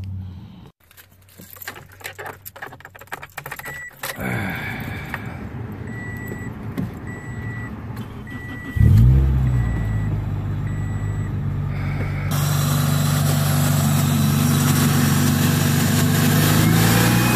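Clicks and shuffling, then a car's warning chime beeping evenly about once every half second, then the Toyota 2ZZ-GE four-cylinder engine cranks and starts about 9 s in, its pitch rising and settling into a steady idle. A steady rushing sound joins the idle a few seconds later.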